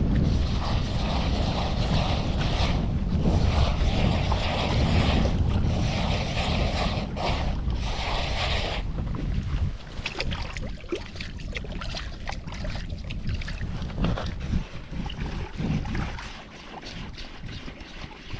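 Wind buffeting the microphone with a loud rumble. It drops away about halfway through, leaving quieter scattered clicks and knocks.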